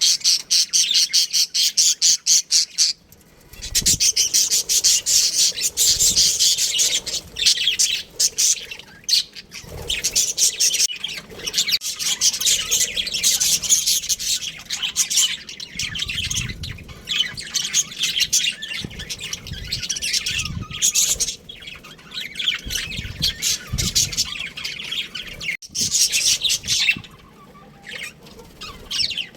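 Budgerigars chattering and chirping in rapid, continuous high-pitched bursts, breaking off briefly a few times, with a few low thuds underneath.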